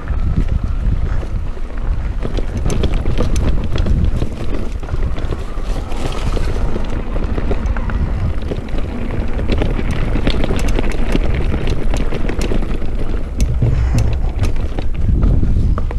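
Mountain bike riding down a dirt trail: wind buffeting the microphone and tyres rumbling over the ground, with frequent sharp clicks and rattles from the bike over bumps.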